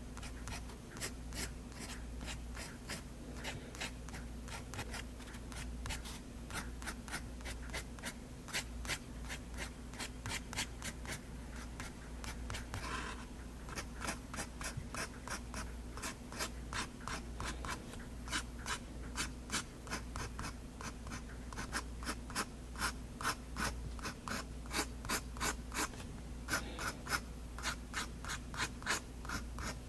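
Extra-fine-nibbed Faber-Castell Hexo fountain pen scratching across drawing paper in many short quick strokes, two or three a second, as small curls are inked. A faint steady low hum lies underneath.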